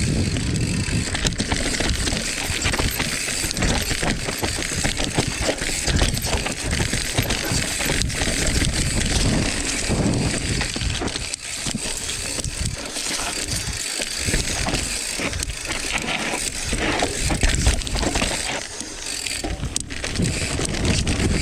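Mountain bike riding fast down a dry, loose dirt trail: steady tyre noise over the dirt, with a constant clatter of small knocks and rattles from the bike over the bumps.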